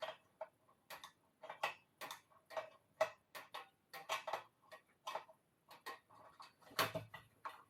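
A string of irregular metallic clicks, about two or three a second, as a 13 mm spanner is worked on a threaded gas fitting of a patio heater burner, loosening it.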